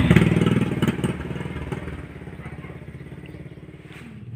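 Small motorcycle engine pulling away loaded with a sack of palay, loudest at the start and fading over the first couple of seconds as it rides off, then running on faintly in the distance.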